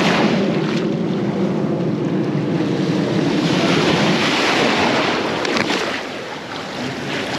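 Shallow surf water washing and sloshing, with wind buffeting the microphone; the hiss of the water grows brighter about halfway through.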